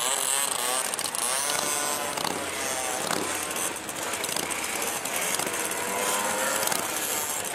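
A group of classic two-stroke mopeds riding past, several small engines buzzing at once, their pitch rising and falling as riders accelerate and shift.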